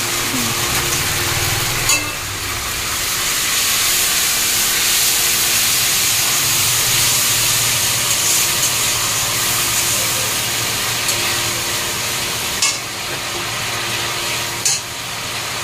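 Spices frying in hot mustard oil in an aluminium kadai: a steady sizzle, with a few sharp clinks of a metal spatula against the pan.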